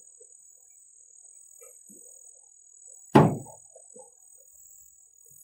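A canoe hull knocked once, a single sharp thunk about three seconds in that dies away within half a second, as the canoe is brought in to land.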